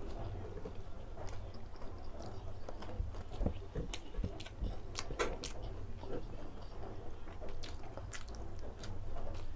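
Close-up chewing of crispy pork belly (lechon kawali) and rice, with wet mouth sounds and sharp clicks and crackles scattered throughout, the strongest a little after the middle.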